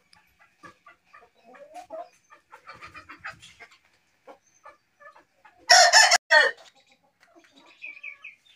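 Aseel roosters clucking softly, then one rooster crows loudly once about six seconds in, a short crow of under a second.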